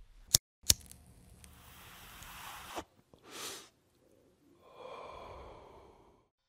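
Edited logo-sting sound effects: two sharp clicks, then a rising whoosh that stops with a click just before three seconds in, a short whoosh, and a fainter hiss with a few high ringing tones that fades out.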